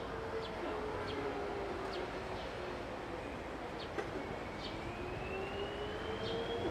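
Outdoor background ambience: a distant tone that slides slowly down in pitch and back up again, with a second, higher tone rising near the end, under short high chirps repeating about twice a second.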